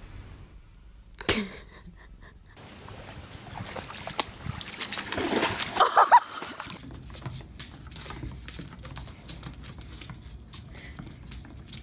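Water splashing, building to its loudest about halfway through. A short cry falling in pitch comes about a second in, and a run of light clicks and taps fills the last few seconds.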